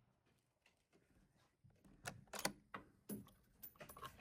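Near silence for about two seconds, then a scatter of faint clicks and light knocks from gear being handled.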